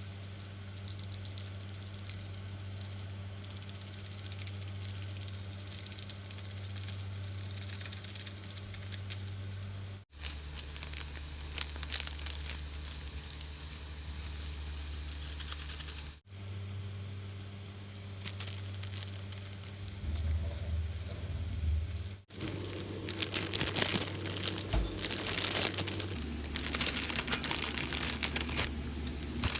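Kitchen food-preparation noises: crinkling and crackling over a steady low hum, broken by three abrupt cuts, with the crackling busiest near the end.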